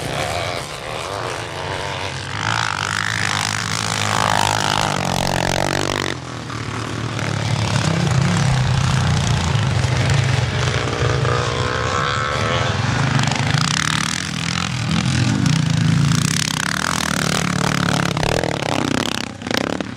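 Vintage scrambles motorcycles, among them a Clews Stroka, racing on a grass course, their engines revving and easing so that the pitch rises and falls. The sound breaks off abruptly about six seconds in and again near the end as the shot changes.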